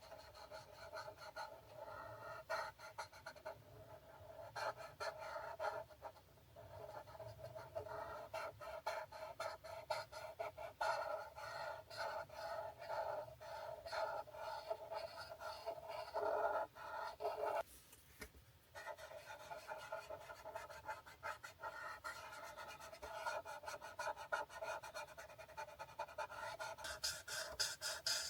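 Alcohol marker tips scratching across paper in rapid, repeated short coloring strokes, with a brief pause about two-thirds of the way through.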